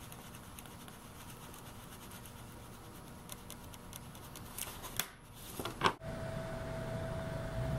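Faint scratching of a pen on paper and light handling noises, with a few soft clicks. About six seconds in, the sound changes abruptly to a steady hum with a constant mid-pitched tone.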